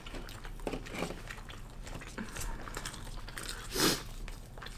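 Close-miked chewing and biting of McDonald's chicken nuggets: soft wet mouth clicks and small crunches, with a short louder rush of noise a little before the end.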